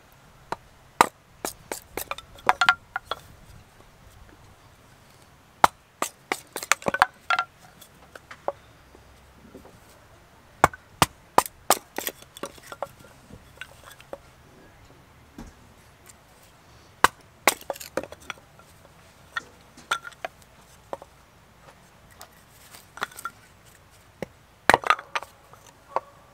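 A fixed-blade knife splitting strips of sawn softwood into kindling on a wooden block: sharp wooden knocks and cracks in irregular clusters, with short pauses between.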